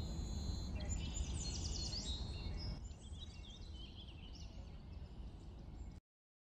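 Several birds chirping and whistling in quick short calls over a steady low background hum of outdoor noise. The background drops a little about three seconds in, and the sound cuts off abruptly near the end.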